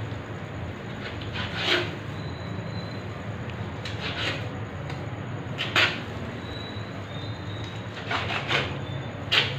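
Kitchen knife cutting boneless chicken: about six short slicing strokes, spaced irregularly a second or more apart, with two close together near the end.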